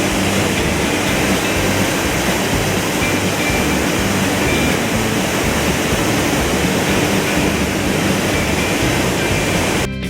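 Waterfall crashing into its plunge pool, a loud steady rush of water, with a low beat of background music under it. Just before the end the water sound cuts off suddenly and guitar music takes over.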